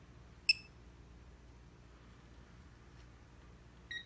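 Electronic beeps from a digital torque wrench: one short high beep about half a second in, then near the end a lower-pitched beeping starts, the wrench's alert that the preset 140 ft-lb torque is being reached.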